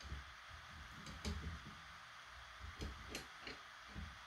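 Faint clicks and scrapes of a long flathead screwdriver's blade against the stock bolt deep inside a wooden shotgun buttstock, as the blade is worked around to find the bolt's slot. There are a few separate clicks, two a little after a second in and three around three seconds in, over a steady hiss.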